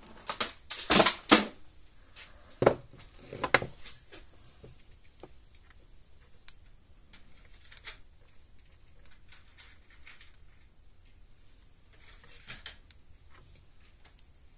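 Hands handling test leads and metal parts on a workbench: a few loud clattering clicks in the first few seconds, then faint single ticks roughly every second and a bit.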